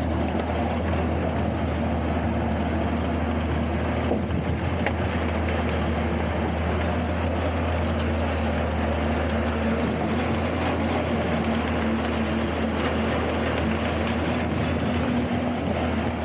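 Diesel engine of an opal agitator, a converted cement mixer, running steadily with a constant low hum while the drum washes opal dirt.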